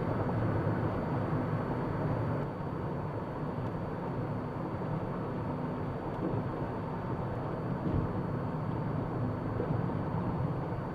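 Steady road and engine noise inside a car cruising at freeway speed.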